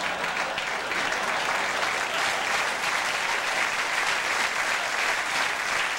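A studio audience applauding steadily after a punchline.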